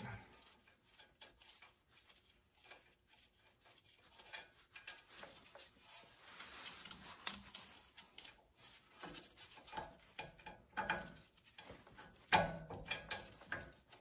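Faint scattered metallic clicks and taps of a small steel bracket and its 12 mm bolt being handled and fitted by hand on a pickup's front steering knuckle, with a louder run of clicks near the end.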